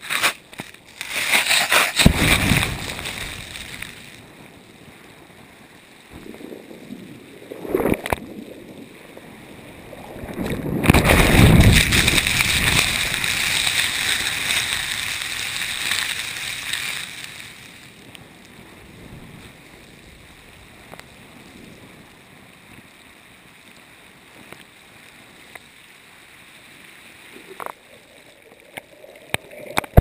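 Surf washing over a GoPro that lies buried in the sand at the water's edge, picked up by the camera's own microphone: rushing surges of water, a short one near the start, a smaller one about eight seconds in, and the biggest about eleven seconds in that ebbs away over the next several seconds, with a low hiss between them.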